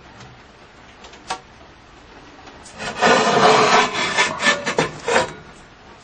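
A rough scraping or rubbing sound that lasts about two and a half seconds in uneven strokes, after a single sharp click.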